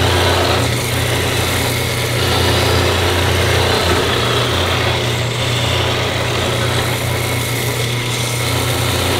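Laguna 6/12 combination belt/disc sander running steadily, its motor humming, while the end grain of a laminated board is pressed against the abrasive. The grinding sanding noise shifts a little as the board is moved.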